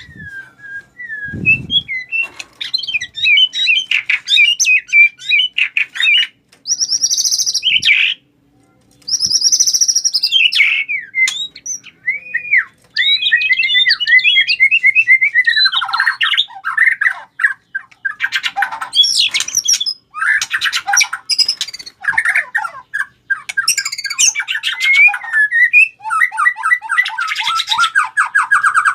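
White-rumped shama (murai batu) singing a long, varied run of quick chirps, trills and clear whistles, with harsh rattling notes mixed in and a brief pause about eight seconds in. This is the bird's aggressive, fighting-mood song, roused against a rival.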